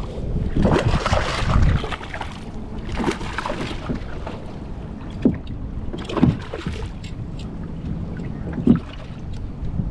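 Water splashing and rustling at a kayak while a just-caught bass is handled, louder for the first two seconds, then a few short knocks against the kayak hull.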